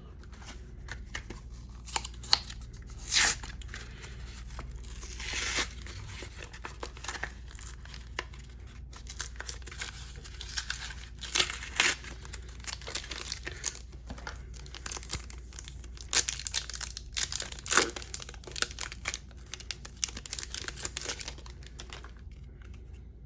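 Trading-card booster pack and its plastic blister packaging being torn open and handled: irregular ripping and crinkling, with louder tears about three seconds in, near the middle, and again around sixteen to eighteen seconds in.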